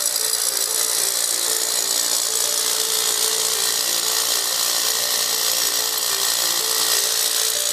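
Electric drill boring a ring of small holes into a concrete basement floor, running continuously as a dense, high grinding noise. The holes outline where a core hole will be cut.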